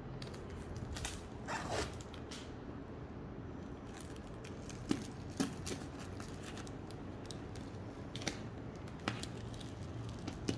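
Bubble wrap crinkling and crackling in irregular bursts as hands fold and press it around a cardboard box, with a few louder crackles scattered through.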